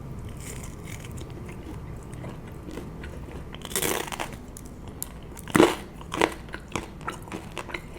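Close-up biting and chewing of a margherita pizza slice with a crispy crust, with two louder crunches about four and five and a half seconds in among softer chewing clicks.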